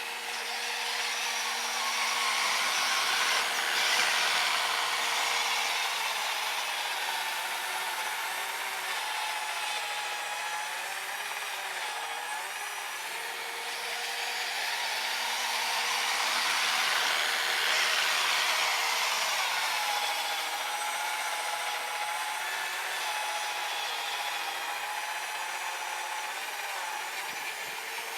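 An RC snowblower's brushed 550 electric motor whines steadily as it drives the auger through powder snow. A rushing noise swells twice, once near the start and once past the middle.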